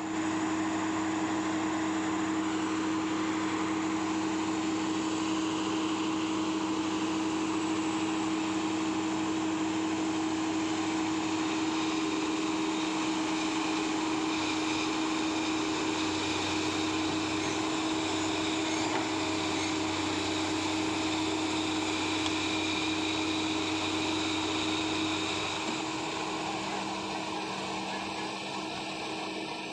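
Excavator diesel engine running steadily at high revs with a constant hum, easing off about four seconds before the end.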